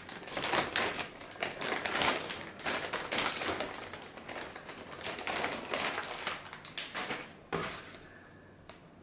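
Clear plastic bag crinkling and rustling as a car head unit is pulled out of it by hand. The crackling dies away about seven and a half seconds in, just after a soft knock.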